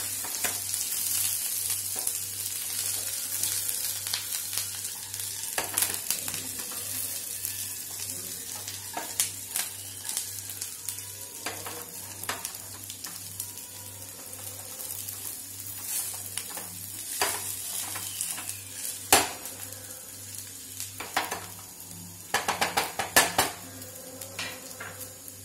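Fried chicken pieces sizzling in hot tempering oil in a metal pan as a wooden spatula stirs and scrapes them. The spatula knocks against the pan now and then, with a sharp knock about three quarters through and a quick run of knocks near the end.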